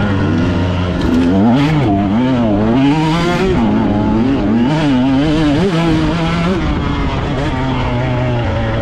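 Dirt bike engine heard close up from the rider's chest, with throttle blips making the revs rise and fall quickly and repeatedly from about a second in. It settles to a steadier pitch for the last couple of seconds.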